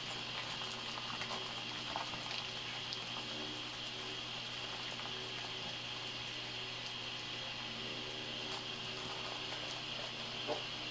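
Steady hiss and low hum of room noise, with a few faint crinkles and ticks from a plastic zip-top bag being pressed flat and handled.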